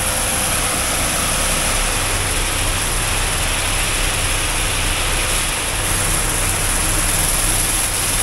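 Seed conveyor running steadily, with yellow peas pouring through its flexible spout into an air cart's seed tank, over the steady low hum of an engine running.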